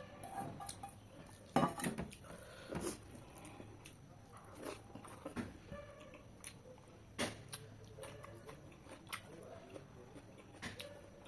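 Close-miked eating sounds from a meal of chicken and bottle gourd curry: irregular chewing and mouth smacks with scattered sharp clicks, the loudest about a second and a half in and again about seven seconds in.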